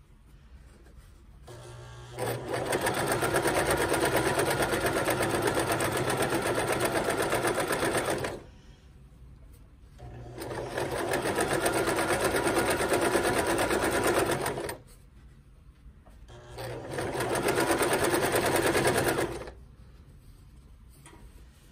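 Electric domestic sewing machine stitching the second pass of a French seam in three runs of several seconds each, stopping briefly between them while the fabric is guided.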